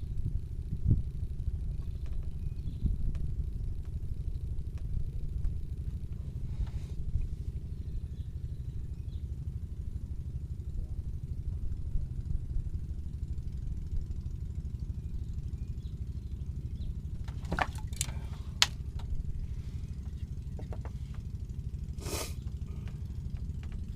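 A steady low rumble, with a few sharp clicks about three-quarters of the way through and another short sharp sound near the end.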